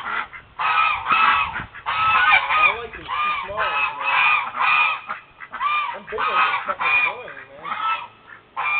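Domestic geese honking over and over, about two short honks a second with barely a pause.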